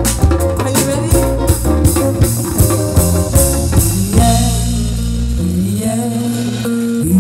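Live band music: two women singing over guitar and drums. About four seconds in, the drums stop and the voices carry on almost alone, sliding between held notes.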